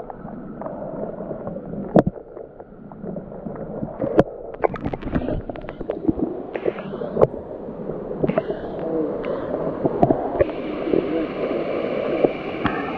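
Rushing river water at the base of a waterfall, a steady churning wash that grows brighter in the second half, with a few sharp knocks.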